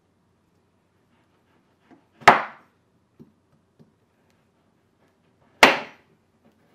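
Kitchen knife chopping down through butter cookie dough and knocking on a wooden cutting board: two sharp knocks about three seconds apart, with a few faint taps between them.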